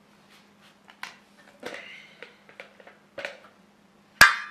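Stainless steel cookware being handled: faint clicks and taps, then a single sharp metallic clank with a brief ring near the end. A faint steady hum runs underneath.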